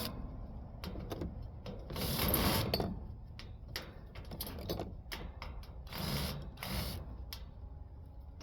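Power drill backing screws out of an air conditioner's sheet-metal panels in short runs, the longest about two and six seconds in, with metallic clicks and rattles between.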